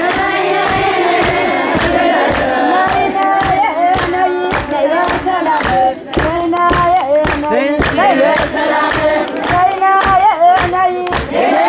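A crowd of Ethiopian Orthodox worshippers, mostly women, singing a religious chant together to steady rhythmic hand clapping.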